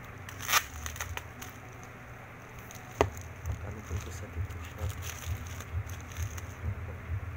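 A few sharp snips and clicks of scissors cutting plastic parcel packaging, then crinkling and crackling of bubble wrap being handled and unwrapped by hand.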